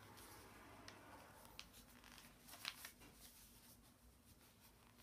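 Near silence broken by a few faint crinkles and taps of a sheet of paper being folded and creased by hand, within the first three seconds.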